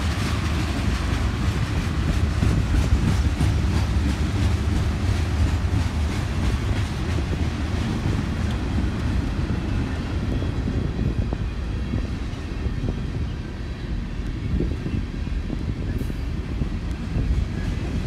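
Freight train rolling past: a steady low rumble of steel wheels on the rails, with a dense run of clicks as the cars go by.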